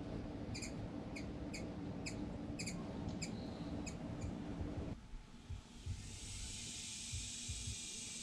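Short, sharp bird chip notes, about two a second, over a low outdoor rumble for the first four seconds; the rumble drops away suddenly about five seconds in, and from about six seconds a steady high-pitched insect drone, typical of cicadas, takes over.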